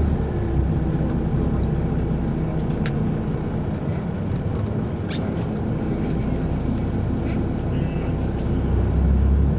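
Substitute bus running on the road, heard from inside the cabin: a steady engine rumble with road noise, the engine note falling just at the start.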